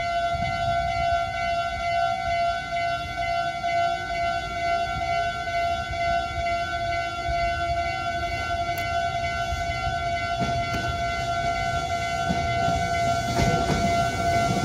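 Japanese railway level-crossing warning bell ringing continuously in a steady, repeating electronic tone. Near the end, a train's rumble builds as it approaches.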